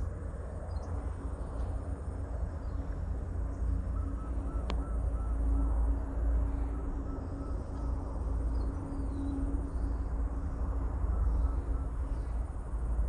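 A bird calling twice, each time a quick run of short, evenly spaced notes, the first about four seconds in and the second a little later, over a steady low rumble. A single sharp click comes during the first run.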